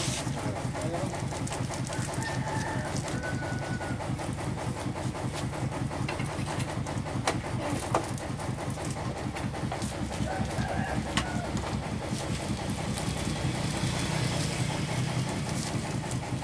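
An engine running steadily with a fast, even throb, with a few short chicken calls over it.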